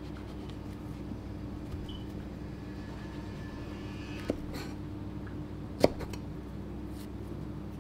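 Small kitchen knife trimming shiitake mushroom stems on a plastic cutting board: a few faint cuts and taps, with one sharper knock of the blade on the board about six seconds in. A steady low machine hum runs underneath.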